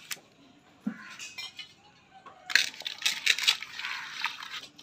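A hand squishing and scraping wet ground curry-leaf masala around an aluminium pot, in rapid uneven strokes that grow loud about two and a half seconds in, after a quiet start while a little water is poured in.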